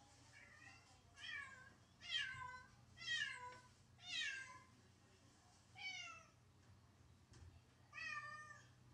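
A domestic cat meowing six times, each call sliding down in pitch: the lonely crying of a cat left alone.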